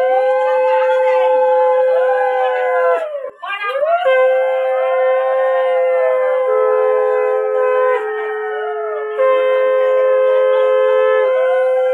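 Conch shells blown in long, steady blasts, a brief break about three seconds in; from about halfway a second conch at a slightly lower pitch sounds alongside the first. Behind them, voices wail in slow rising and falling cries.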